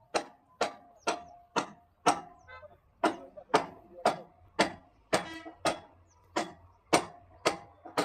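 Hammer blows struck at an even pace of about two a second, each a sharp knock with a brief ring, with a short pause about two and a half seconds in. It fits nailing or knocking timber shuttering while preparing a slab for casting. A brief pitched note sounds about five seconds in.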